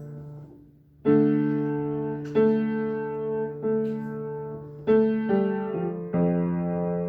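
Piano playing slow sustained chords, each struck and left to ring and fade. The first chord dies away about a second in, then new chords come every second or so, changing more quickly past the middle.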